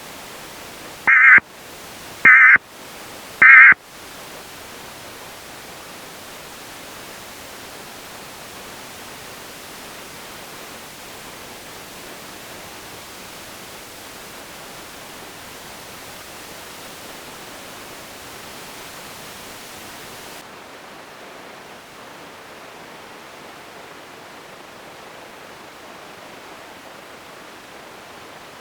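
Three short bursts of screechy Emergency Alert System-style digital data tones in quick succession, the end-of-message signal after a spoken alert. Steady static hiss follows and turns duller about 20 seconds in.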